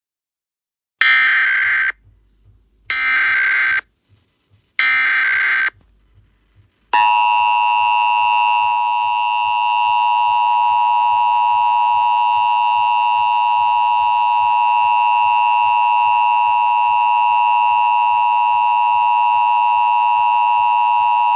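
Emergency Alert System alert tones: three short bursts of warbling digital data tones (the SAME header), each just under a second long with about a second between them, then, about seven seconds in, the steady harsh two-tone EAS attention signal, which keeps sounding.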